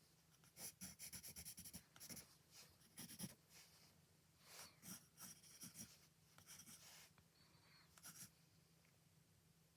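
Faint scratching of a drawing tool on paper in short strokes, coming in uneven bursts with a quick run of strokes about a second in.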